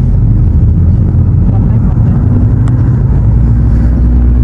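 Inside a moving car: a steady low rumble of engine and road noise, with a single sharp click about two and a half seconds in.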